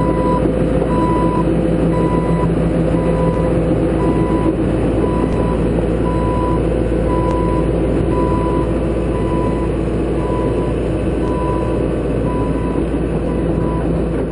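Excavator travel alarm beeping steadily, a little under two beeps a second, over the John Deere 160C LC's diesel engine running: the tracks are in motion.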